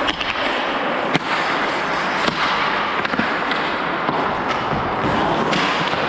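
Ice hockey play heard from on the ice: steady scraping of skate blades, broken by a few sharp clacks of sticks and puck.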